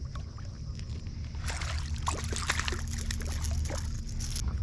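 Water splashing and sloshing: a busy run of sharp splashes starts about one and a half seconds in and stops shortly before the end, over a steady low rumble.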